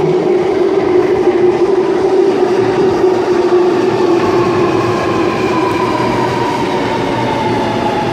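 Alstom Metropolis metro train pulling into the platform, its electric traction motors whining and falling steadily in pitch as it slows, over the rumble of the wheels.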